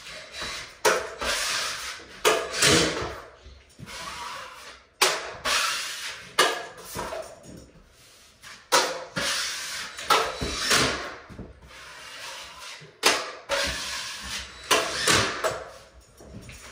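Metal taping knife scraping joint compound onto drywall, a series of quick strokes, about one or two a second, each starting sharply, with a few short pauses.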